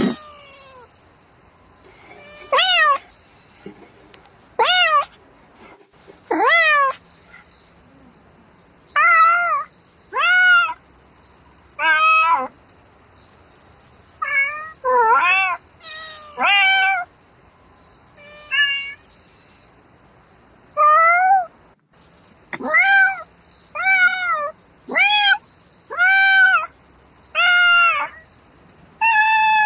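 Domestic cat meowing over and over: about seventeen drawn-out meows, each rising then falling in pitch, with short pauses between them.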